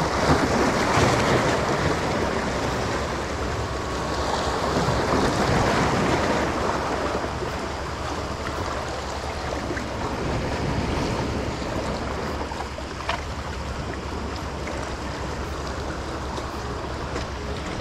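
Small sea waves washing and splashing against the rocks of a stone jetty, with a couple of louder surges in the first several seconds before settling to a steadier wash.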